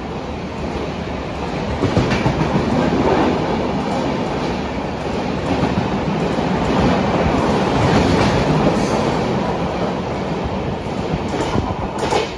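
Express train coaches rushing past at speed, wheels clattering over the rail joints. A couple of sharp clanks near the end as the last coach goes by.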